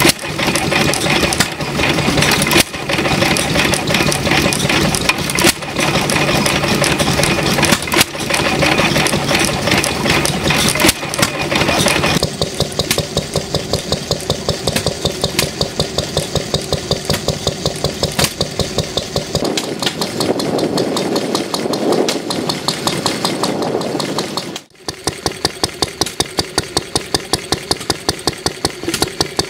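Vintage stationary engines running one after another, each with a steady, regular beat of firing strokes and sharp knocks here and there in the first part. The sound changes about 12 seconds in and cuts abruptly near the end to a Lister engine running at about three to four beats a second.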